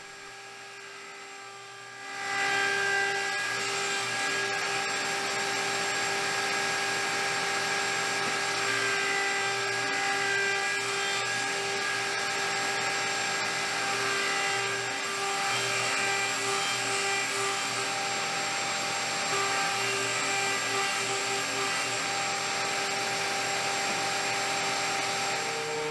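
Table-mounted router spinning up about two seconds in, then running steadily with a whine as its chamfer bit cuts a small 45-degree chamfer around the drilled holes in a maple board.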